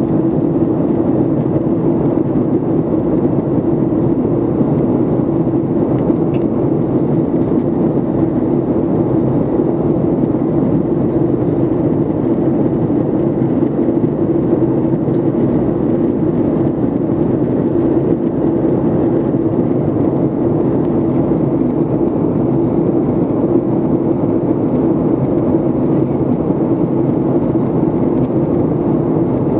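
Cabin noise of a Boeing 737 MAX 8 climbing after takeoff, heard from inside the cabin: the even rush of its CFM LEAP-1B turbofan engines and airflow, with a steady low hum and no change in level.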